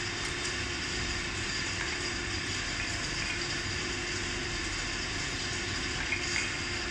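Steady mechanical background noise, an even hiss with a faint steady hum under it, like a running fan or machinery in a workshop. Two faint small clicks sound a little after six seconds in.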